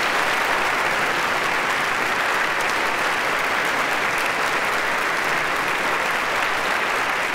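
Steady applause from a large concert audience.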